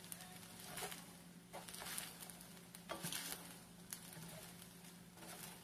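Two wooden spatulas stirring and tossing fried rice in a stainless steel pan: soft, irregular scrapes and rustles with a few light knocks, over a steady low hum.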